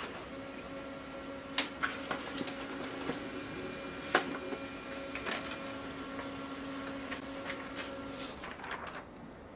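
HP LaserJet 1320 laser printer running a print job: its motor hums steadily with several sharp clicks from the paper-feed mechanism as a sheet is picked up, fed through and ejected into the output tray. The run stops near the end.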